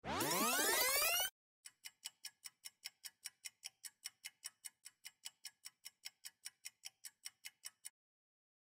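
A rising sweep of many tones that cuts off sharply after about a second, then a clock-like ticking, about five ticks a second, that stops abruptly about a second before the end.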